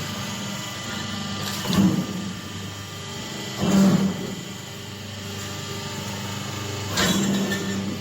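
Semi-automatic paper plate making machine running with a steady motor hum, broken by three louder pressing strokes of the die about two, four and seven seconds in.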